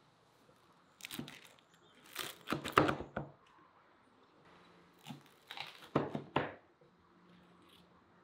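Large knife cutting through the crisp baked crust of a meat pide on a wooden cutting board: crackling crunches in three bouts, the loudest about three seconds in.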